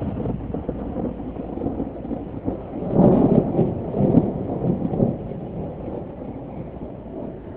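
Thunder rolling, swelling about three seconds in with a couple of louder rolls, then fading away.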